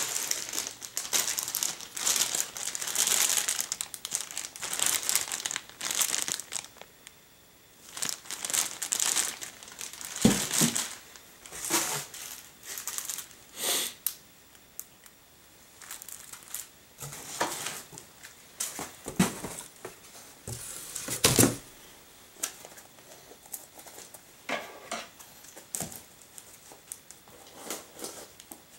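Plastic packaging crinkling and rustling in irregular bursts as items are handled and pulled out of a cardboard box, with a few dull knocks as things are set down.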